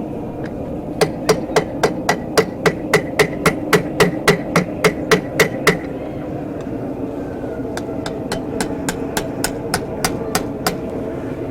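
Hammer striking a hot mild-steel bar on an anvil to close the loop of an S-hook: a quick run of ringing blows, about three a second, then after a short pause a second run of lighter blows.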